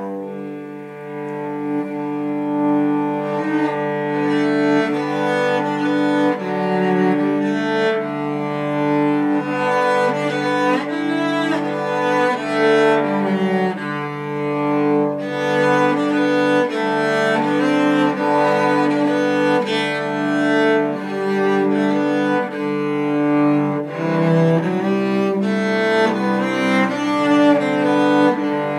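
Cello playing a bowed piece of sustained notes, often several sounding together, changing pitch every second or so.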